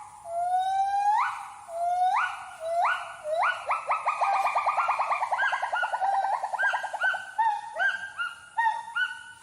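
A gibbon's song: loud rising whooping notes that come shorter and faster, running into a rapid trill about four seconds in, then settling into a run of short up-and-down hoots.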